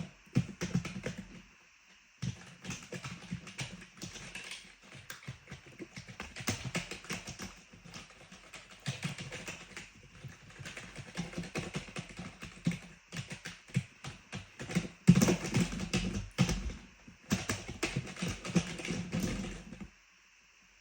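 Typing on a clicky keyboard: a fast, uneven run of key clicks with a brief pause about two seconds in. The typing stops shortly before the end.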